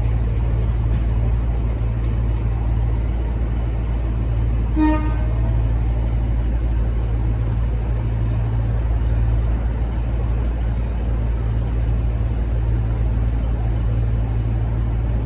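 V/Line N class diesel-electric locomotive engine running with a steady low rumble, with one very short horn toot about five seconds in.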